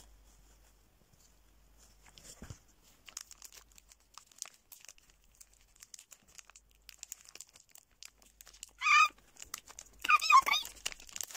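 Chocolate bar wrapper being torn open by hand: scattered crinkles and small tearing clicks. Near the end, two short high-pitched squeals are the loudest sounds.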